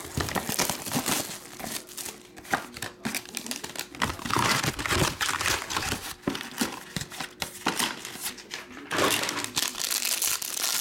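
Foil trading-card pack wrappers crinkling and crackling as they are handled and opened, with many small clicks. The rustling is loudest around four to five seconds in and again about nine seconds in.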